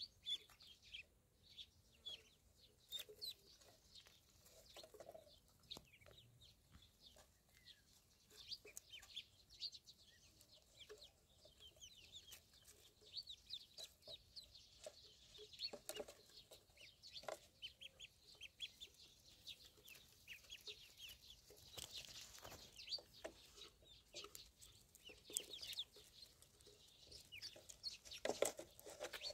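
A group of ducklings peeping: many short, high, falling cheeps overlapping one another, faint, with a few soft taps, busier and louder near the end.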